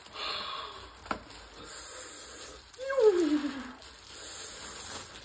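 A woman's drawn-out, falling vocal exclamation about three seconds in, over faint rustling of parcel packaging, with one sharp click about a second in.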